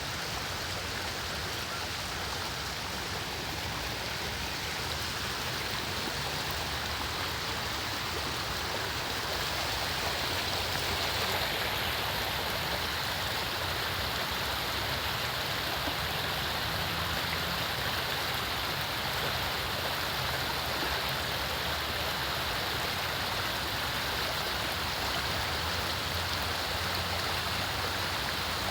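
Steady rushing of flowing water, like a stream, with no breaks; the hiss grows a little brighter about eleven seconds in.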